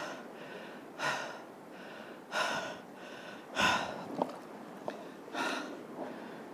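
A man breathing hard and audibly, one breath about every second and a half, close to a chest-mounted camera's microphone: he is out of breath from fighting a big trevally that has just cut the line on the reef.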